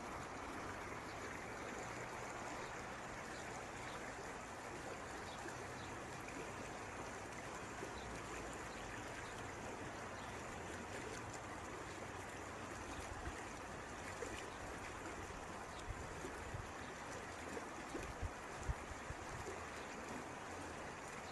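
Muddy floodwater rushing down a village street after a cloudburst: a steady rushing of fast-flowing water, with a few brief low bumps near the end.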